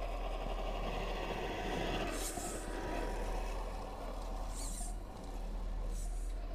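1:10 Reely FreeMen RC crawler pushing through deep snow, its sound module playing a steady simulated truck engine drone. Short air-brake-like hisses come from the module about two, four and a half and six seconds in.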